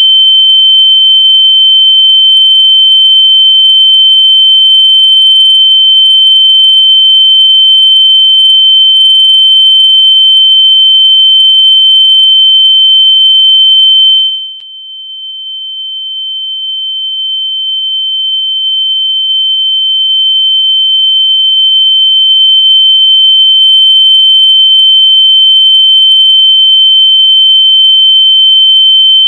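A loud, continuous high-pitched electronic tone at one steady pitch, played as a locator sound for finding lost AirPods. About halfway through it drops sharply in volume, then swells back to full over several seconds.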